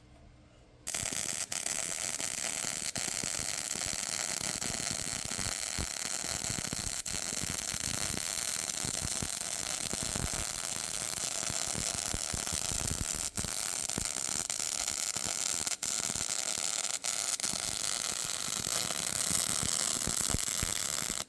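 Wire-feed welder's arc crackling steadily through one long weld pass on steel, starting about a second in, with a few brief dropouts, and stopping abruptly near the end.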